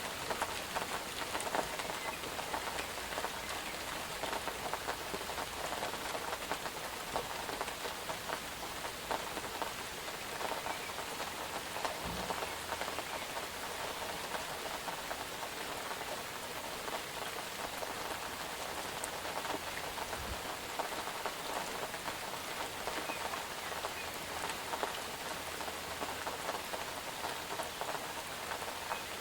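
Steady rain falling and pattering on a surface, with dense individual drop ticks. Two faint low thuds, about twelve and twenty seconds in.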